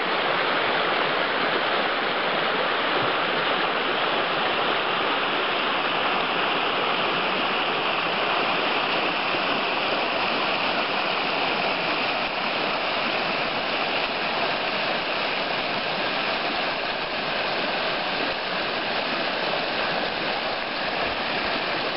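Fast-flowing mountain river rushing steadily, with white water over rocks.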